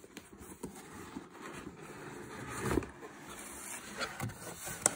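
Cardboard mailer box being handled and its lid pulled open: soft scraping and rubbing of cardboard, with a few light knocks and a louder scrape a little before three seconds in.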